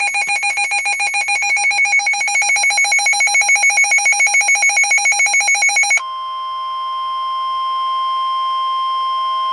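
Emergency Alert System alert tones for a severe thunderstorm warning. First a loud, rapidly pulsing electronic alarm made of several stacked tones. About six seconds in it switches to a long, steady attention tone.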